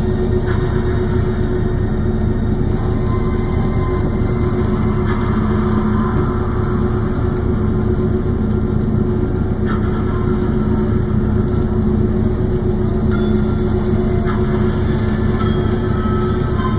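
The icebreaker sightseeing ship's engines run with a steady low drone and hum as it pushes through drift ice. Now and then come faint short scrapes and creaks, which are likely ice floes rubbing against the hull.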